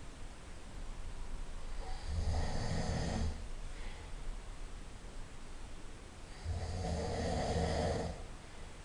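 A person snoring in sleep: two long snores about four and a half seconds apart, each lasting over a second, with quieter breathing between them.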